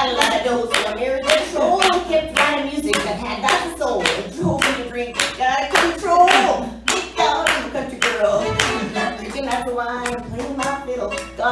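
Audience clapping along in a steady beat, roughly two to three claps a second, over a violin being bowed and a woman singing.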